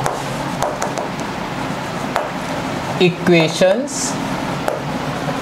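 Chalk writing on a chalkboard: a few sharp taps and scratches of the chalk over a steady background hiss.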